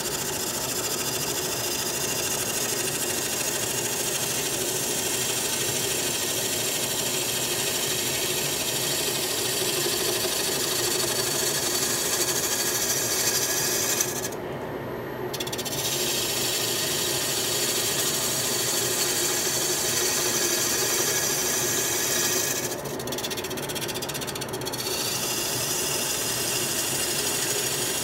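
Wood lathe running with a turning tool cutting a spinning black walnut blank: a steady hiss and scrape of shavings over the lathe motor's hum. The cutting breaks off briefly twice, about halfway through and again near the end, while the motor keeps running.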